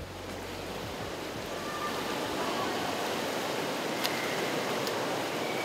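Water splashing from a swimmer's front-crawl strokes in a swimming pool: a steady wash of splashing that grows louder about two seconds in.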